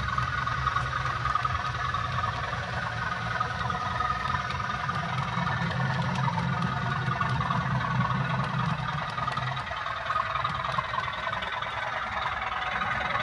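Model diesel multiple unit running along the layout track, its motor and wheels giving a steady running hum that eases off about ten seconds in as the train moves away.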